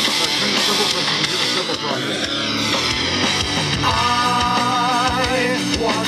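A rock song with guitar playing loudly through a small TruSound Unplug Bluetooth speaker, picked up close by a microphone. A held wavering note comes in about four seconds in.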